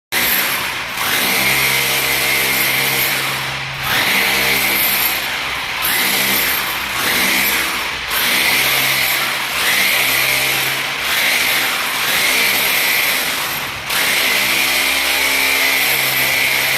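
A power tool running loudly in a string of pushes of one to three seconds each, dipping briefly between them.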